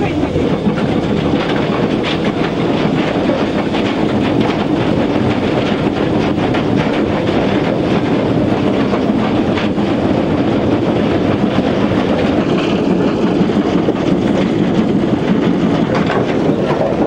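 A steam locomotive running at speed, heard from its cab: a loud, steady rumble and rattle of the engine working and the wheels on the rails.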